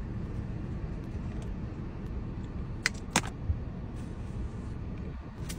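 Steady low rumble of a car cabin, with a few short clicks about three seconds in and one near the end.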